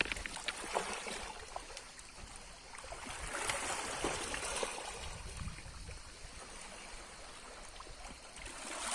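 Water splashing and trickling, swelling louder for a couple of seconds in the middle, with a few small clicks in the first second.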